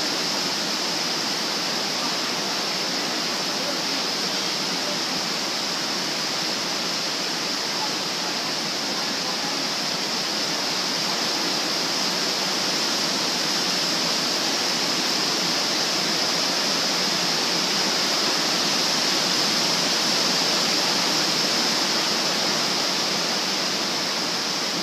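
Heavy downpour drumming on a metal roof: a dense, steady hiss of rain with no breaks.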